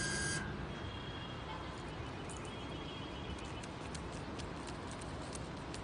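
Steady outdoor background noise with light high clicks. A faint high whine comes twice, each time for about a second.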